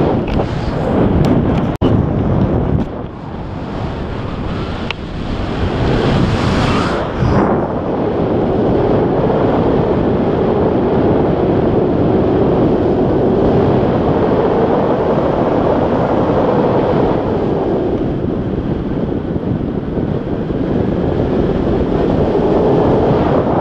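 Wind rushing over an action camera's microphone on a tandem paraglider in flight, loud and steady. A few sharp clicks come in the first two seconds.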